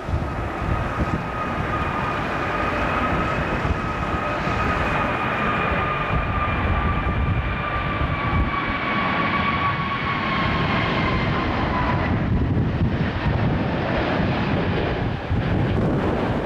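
Twin-engine jet airliner on landing approach: an engine whine that falls slowly in pitch as the jet passes and fades out about twelve seconds in, over a steady rumble of strong wind buffeting the microphone.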